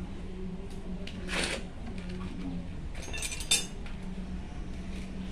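Motorcycle front wheel spun by hand: a brushing swish, then a short metallic scrape and clink about three and a half seconds in as the brake disc rubs the pads. The brake is dragging because the caliper pistons do not move together.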